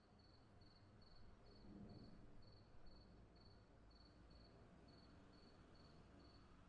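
Near silence, with a faint high-pitched chirp repeating about twice a second.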